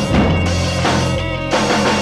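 Instrumental stretch of band music: a drum kit keeps a steady beat under guitar and bass, with no singing.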